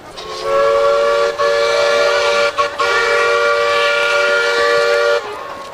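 Chime steam whistle of a 15-inch-gauge live-steam locomotive, sounding a chord of several steady tones. It is blown as three blasts with only brief breaks between them, the last one the longest.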